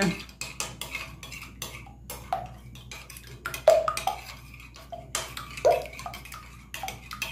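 Fork beating raw eggs in a glass bowl: quick, irregular clicks of the fork against the glass.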